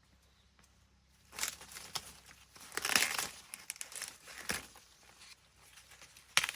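Irregular rustling and crinkling, loudest about three seconds in, with a sharp snap near the end.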